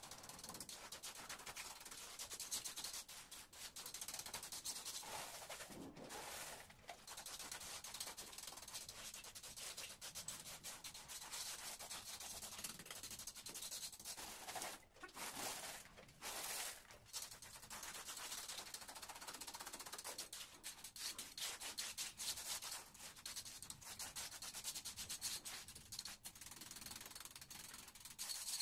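Trowel scraping and spreading wet concrete: a continuous rough scrape made of many quick strokes, broken by short pauses about six seconds in and again around the middle.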